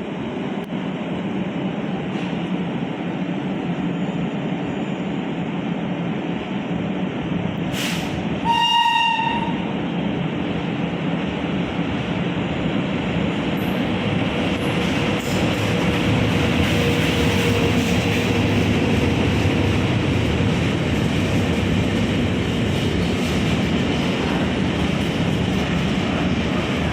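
A train running past on the rails with a steady rumble, and one short horn blast about nine seconds in. The rumble grows a little louder in the second half.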